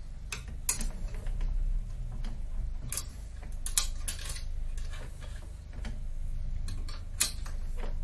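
A small wrench tightening the bolts on a satellite dish's LNB converter clamp and bracket: scattered sharp metal clicks and taps at irregular intervals, with a steady low hum underneath.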